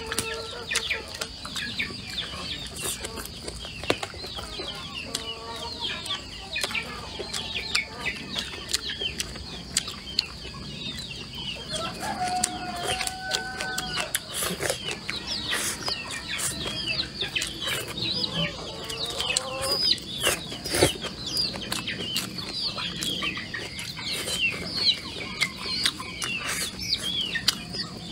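Chickens clucking, with many short high chirps throughout and a steady high hum behind them. Close-up eating sounds and sharp clicks come on top.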